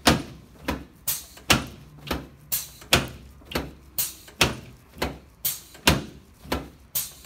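A steady run of sharp clacks, about two a second, each dying away quickly.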